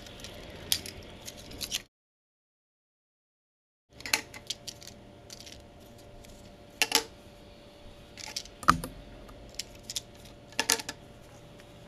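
Hard plastic clicks, taps and light rattles as a cassette-tape-shaped USB hub and its clear plastic case are handled, with a USB plug pushed into the hub near the end. The sound cuts out completely for about two seconds near the start.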